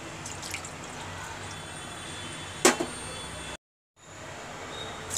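Milk being poured from a glass into a steel saucepan, with one sharp knock about two and a half seconds in. The sound cuts out completely for a moment shortly after.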